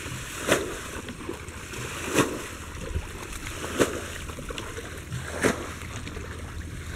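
Slow wading steps splashing through shallow muddy water, one about every second and a half, over a low steady hum.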